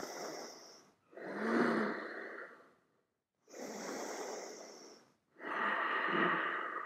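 A yoga instructor's deep breaths in and out, four long breaths of one to two seconds each with short pauses between them, taken while holding a pose.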